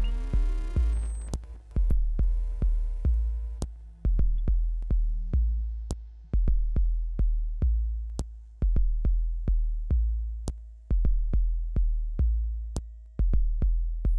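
Electronic music: deep bass kick hits that each die away, in an uneven, stuttering rhythm, with sharp clicks over them and a few faint held synthesizer tones.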